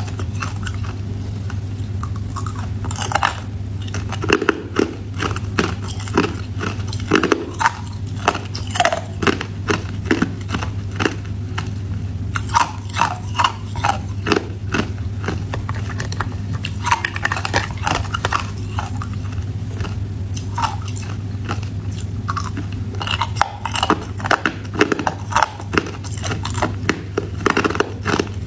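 Ice being crunched and chewed between the teeth: clusters of sharp cracks and crunches with short pauses between, over a steady low hum.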